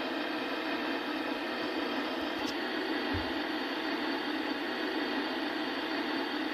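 Tamiya radio-controlled fire engine running with a steady, even mechanical noise, a small low bump about three seconds in.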